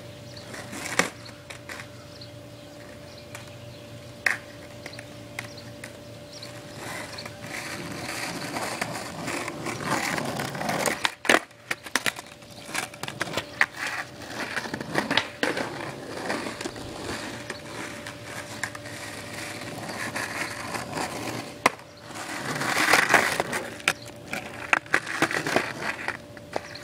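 Skateboard wheels rolling over asphalt and concrete pavement, with several sharp clacks of the board hitting the ground. The rolling gets louder as the board comes close.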